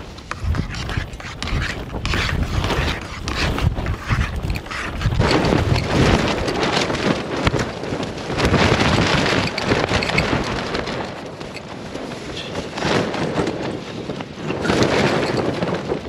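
Strong gusting wind battering a small tent, the fabric shaking and billowing, with the wind swelling into loud surges every few seconds.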